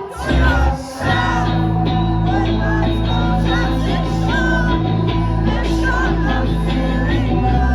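Live rock band playing, with a singer's voice over sustained bass and guitars. The band drops out briefly in the first second, then comes back in full.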